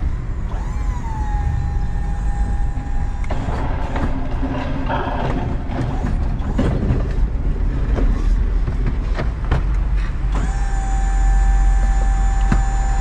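Tow truck running with the steady whine of its hydraulic wheel-lift, heard for a few seconds near the start and again from about ten seconds in as the lift is worked under the car; scattered clanks and knocks in between.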